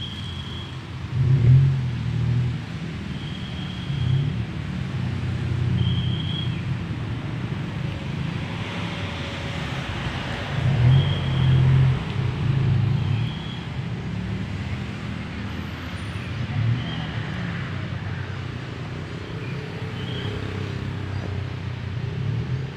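A low rumble that swells and fades in gusts, with a short high bird note repeating every two to three seconds.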